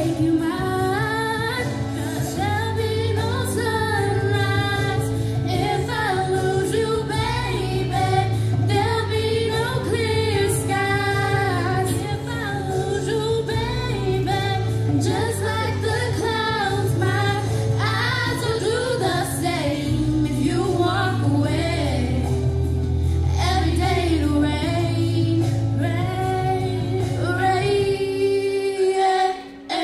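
Two girls singing a slow ballad duet into microphones over an instrumental accompaniment with steady, sustained low notes. The sound dips briefly near the end.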